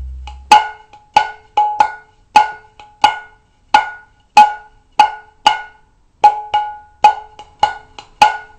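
Mridanga drum played in a quick, uneven rhythm: about twenty sharp strokes, each ringing briefly with a clear pitch and no deep bass.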